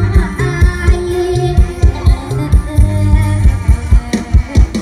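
Live Isan luk thung band music played loud over a PA, with a steady bass-drum beat under keyboard melody and a singing voice.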